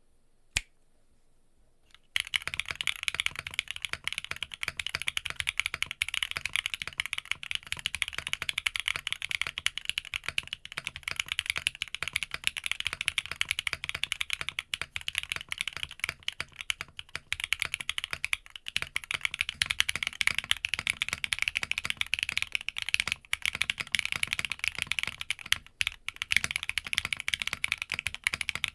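Rapid, continuous typing on an Arc60 60% mechanical keyboard fitted with Sarokeys Strawberry Wine switches, first with an aluminium plate and later with a carbon-fibre plate. A single key click comes first, then steady fast typing starts about two seconds in.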